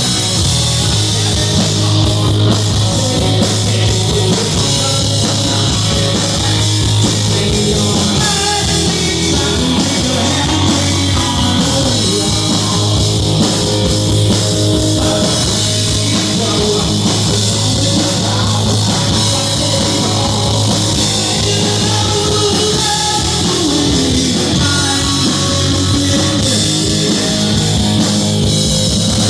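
Loud rock music with electric guitar, a drum kit and a singing voice, playing steadily without a break.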